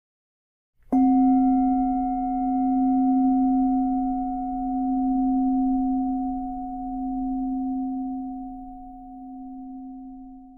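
A meditation bell struck once, ringing with a long, low, pure tone that slowly swells and fades in loudness before being cut off abruptly. The bell marks the start of a timed meditation interval.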